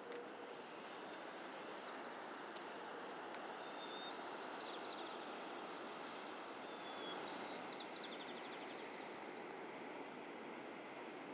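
Steady rushing background noise, with a small songbird singing twice, each time a short whistled note followed by a rapid trill.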